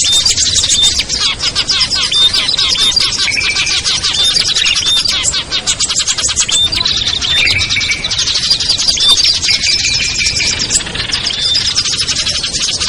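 A dense chorus of small songbirds, mixed prinias and bulbuls, chirping rapidly and calling over one another without a break, with short whistled notes repeating through it. It is a bird-lure call track meant to draw small wild birds in.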